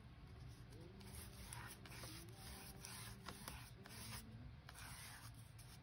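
Faint, repeated swishing strokes of a foam brush spreading sealer over a glued-on book page.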